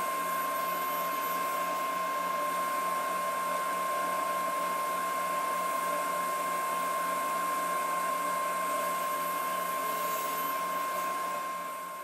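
Powermatic table saw running at speed, a steady hum with a high whine on top; it fades away near the end.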